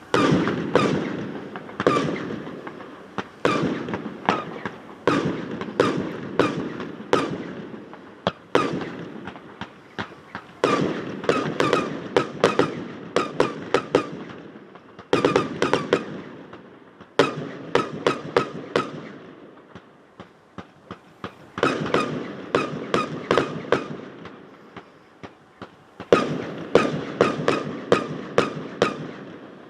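Fireworks display: volleys of sharp bangs, several a second, with short lulls between volleys. Each bang trails off in a long, odd-sounding echo off a metal hangar.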